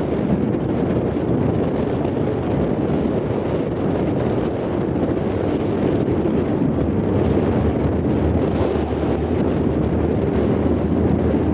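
Drag car's engine idling steadily while staged at the starting line, with wind on the microphone.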